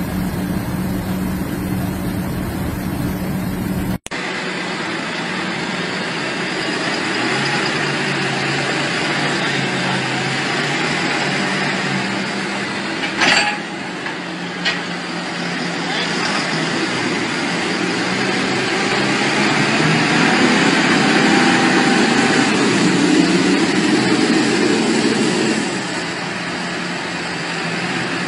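Diesel engines of large farm tractors running hard under load as two tractors pull against each other. The sound changes abruptly about four seconds in. Two short sharp sounds come about halfway, and the engines grow louder for several seconds near the end.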